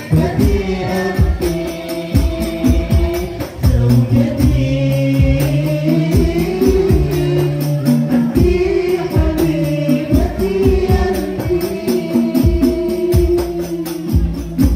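Two young women singing a syair, a sung Malay-Indonesian devotional poem, into microphones, with a steady beat of percussion strokes under the melody.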